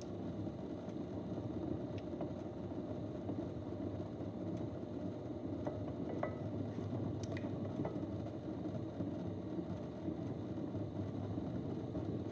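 Potter's wheel running with a steady low rumble, with a few faint clicks around the middle and near the end.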